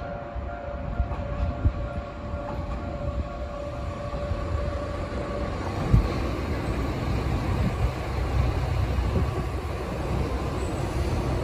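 Diesel railcar approaching along the track, its engine and wheels on the rails growing louder. A steady tone drops out about halfway, and there is a single knock soon after.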